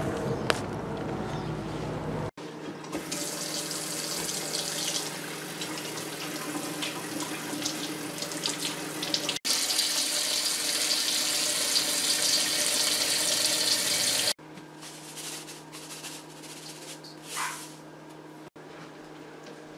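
Kitchen tap running in a steady stream into a stainless steel bowl of squirrel meat in the sink as the meat is rinsed. The water stops about two-thirds of the way in, leaving faint handling sounds.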